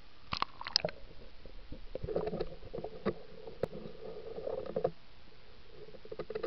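Underwater recording of breeding toads: a few sharp knocks in the first second, then a rapid pulsed croaking from the toads for about three seconds, with a shorter burst near the end.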